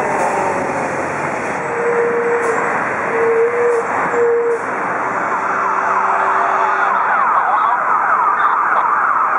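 Fire truck sirens sounding as engines pass on a response. About two to four and a half seconds in come three short horn blasts, then fast rising and falling siren sweeps take over and run on.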